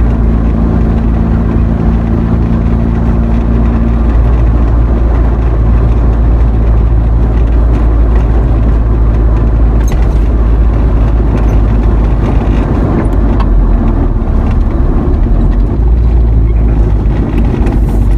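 Truck driving along, a steady, loud low rumble of engine and road noise, with a few steady engine tones for the first few seconds that then fade.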